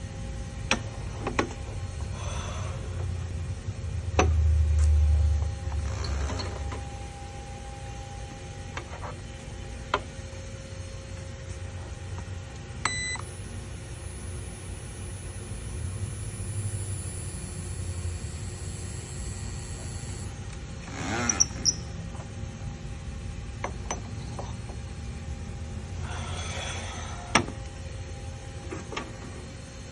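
Haimer Power Clamp induction shrink-fit machine heating a shrink-fit tool holder: a click, then a steady high-pitched whine for about seven seconds that cuts off suddenly. Around it are clicks and knocks of steel tool holders being handled on the machine, over a steady low hum.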